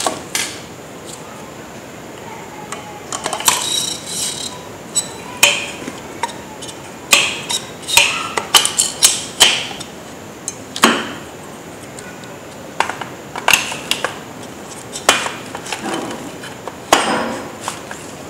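Kyocera TASKalfa 1800 copier drum cylinder and its plastic drum-unit frame knocking and clicking as the drum is handled and seated into the frame: an irregular string of sharp clicks and clacks, busiest in the middle, a few with a brief metallic ring.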